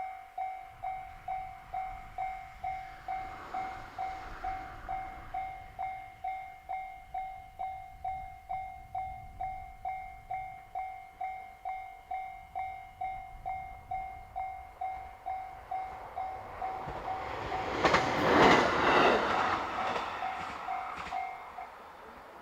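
Japanese level-crossing alarm ringing a steady ding about twice a second. A JR Hokkaido H100 (DECMO) diesel-electric railcar passes over the crossing, loudest about 18 seconds in, with a few sharp clicks. The alarm stops just before the end.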